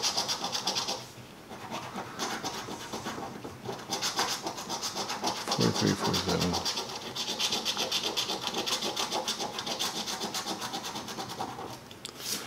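A copper coin scraping the latex coating off a scratch-off lottery ticket in rapid back-and-forth strokes, with a short pause about a second in.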